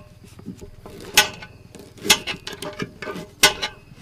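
Kitchen knives cutting through limes and knocking on a wooden cutting board: irregular sharp knocks, a few louder ones among smaller taps.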